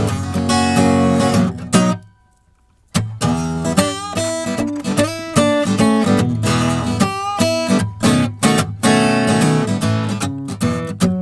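Background music led by strummed acoustic guitar, with a brief break of about a second, roughly two seconds in.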